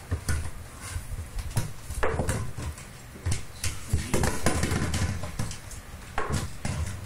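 An empty plastic drink bottle being batted and pushed by a cat across a wooden floor: irregular hollow knocks, clatters and scrapes of the plastic on the boards.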